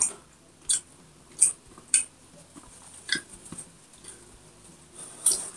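Close-miked mukbang eating and handling sounds: sharp, separate clicks and smacks, roughly one every half second to second, as a bite of pork and kimchi is folded into a leaf wrap.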